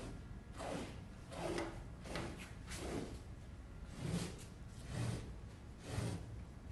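Vacuum nozzle swept back and forth over a washed carpet on a factory finishing table: a swishing rub about once a second over a low, steady rumble.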